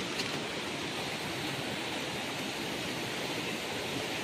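Steady rush of a waterfall, with rain-swollen water running over the rock slab.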